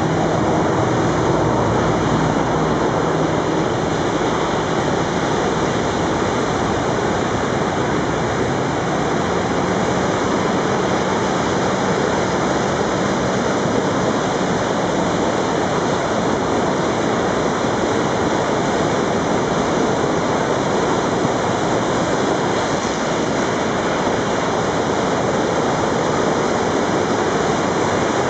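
Floodwater in a normally trickling creek, risen to around seven feet, rushing and churning over rocks as whitewater. Loud and steady.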